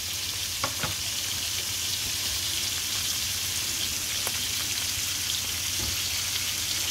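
Onions and red peppers sweating and floured pollock pieces frying in oil in two frying pans: a steady sizzle with a few small crackles.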